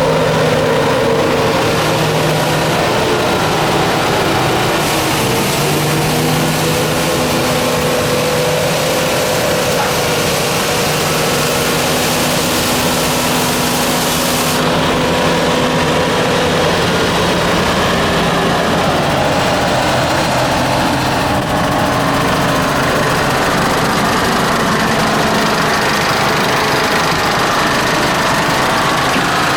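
Bucher CityCat 5000 compact street sweeper running, its Mercedes OM 904 LA four-cylinder diesel engine and machinery giving a steady drone with several whining tones that shift now and then. A high hiss joins about five seconds in and stops about halfway through.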